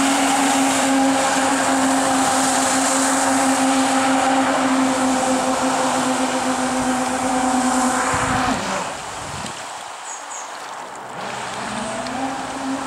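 Homemade electric jet kayak under way: a steady whine from its motors and jet drive over the hiss of water spray. The whine cuts back about eight and a half seconds in, then rises again near the end.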